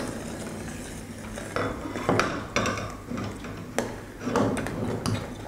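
Metal spoon stirring chutney in a steel saucepan, clinking and scraping against the pan a few times.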